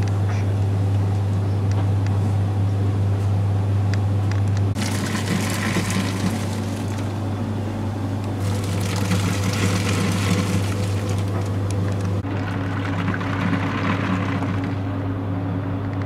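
Philips TopTwin twin-tub washing machine on a boil wash: a steady low electrical hum under the sound of churning, bubbling hot water as the heated wash solution is forced up the agitator and sprayed over the towels. The sound changes abruptly about five and twelve seconds in.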